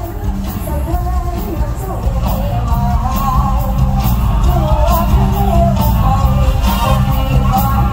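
Female singer singing an Isan-style song into a microphone over loud amplified music with a steady beat and bass.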